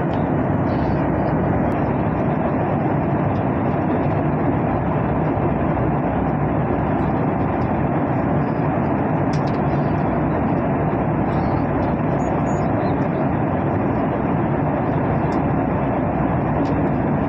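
Airliner cabin noise in cruise: a steady, unbroken rush of jet engine and airflow noise heard from inside the passenger cabin.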